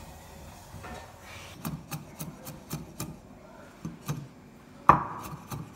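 Cleaver chopping garlic on a wooden cutting board: quick knocks, about four to five a second, starting about a second and a half in, with one louder chop near the end.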